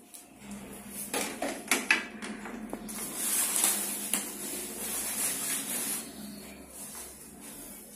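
Clear plastic wrapping rustling and crinkling as it is pulled off wooden cot panels, loudest in the middle stretch. A few sharp knocks come about a second in.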